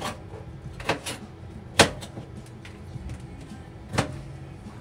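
A kitchen knife knocking on a plastic cutting board as a red bell pepper is rough-cut into chunks: a few sharp knocks, irregularly spaced, the loudest about two seconds in.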